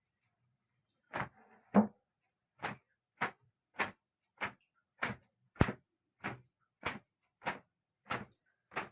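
Towel stroking long wet hair to dry it, in a steady rhythm of short swishing strokes, about three every two seconds, starting about a second in.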